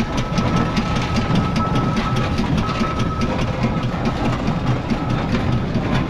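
1917 Fowler BB steam ploughing engine running, with a quick, even clatter of about five beats a second over a low rumble.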